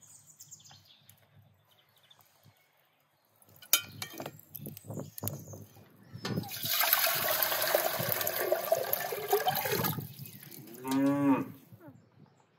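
Water poured into an aluminium pot, a steady rush lasting about four seconds from halfway in. Then a cow moos once, briefly, near the end.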